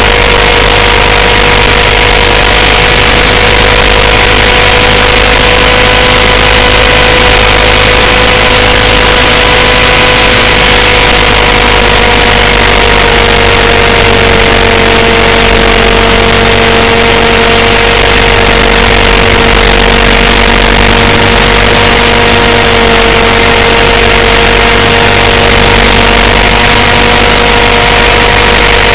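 The small nitro engine and spinning rotor of a Raptor 32 RC helicopter run steadily, very loud and close as heard from a camera mounted on the helicopter. The pitch settles slightly lower about halfway through.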